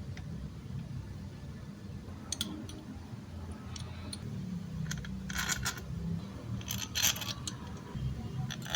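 Small metal tools and parts clinking and tapping against each other in scattered light clicks, with a few quick clusters in the second half, over a low steady hum.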